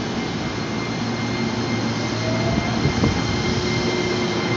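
Electric commuter train rolling slowly alongside a station platform: steady running noise from the cars and wheels, with a thin whine and a brief, slightly rising tone partway through.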